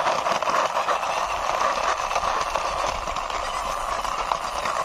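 Plastic wheels of a toy sports motorbike rolling and scraping along rough concrete as it is pushed by hand, a steady gritty rattle made of many fine ticks.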